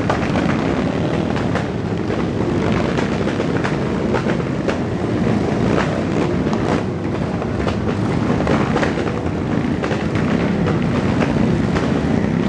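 Many motorcycle engines running together, a dense, steady din with frequent sharp cracks scattered throughout.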